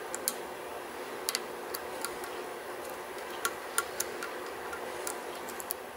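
Steel lock pick working the pins of a Sargent Signature LFIC cylinder under tension: a string of light, irregular metallic clicks and taps, a dozen or so spread unevenly, over a steady faint hiss.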